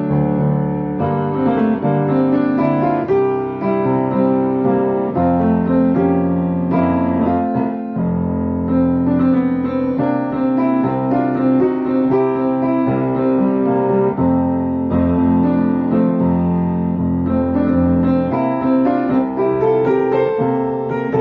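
Background piano music, calm and sustained, with notes changing in steps.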